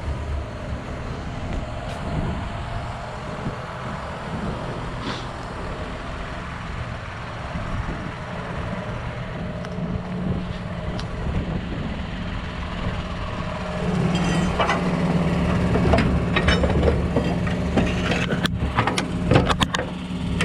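Tractor engine idling steadily, louder from about two-thirds of the way in, with a run of sharp metal clanks and knocks near the end as the plough is worked on with a spanner.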